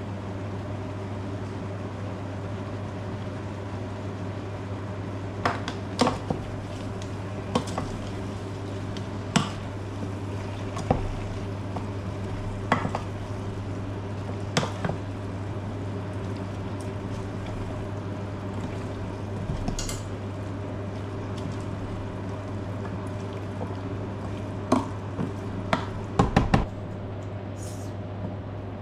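Spoon knocking and scraping against a cooking pot at irregular intervals as tomato paste is stirred into the vegetables, over a steady low hum.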